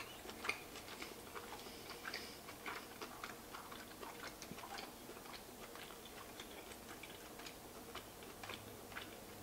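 Person chewing lobster meat with sauce close to the microphone: faint, irregular wet mouth clicks, a few a second.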